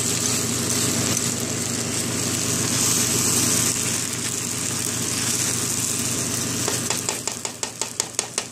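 Vegetable fried rice sizzling in a wok as it is stirred, over a steady low hum. Near the end comes a quick run of sharp clicks, the spatula knocking and scraping against the wok.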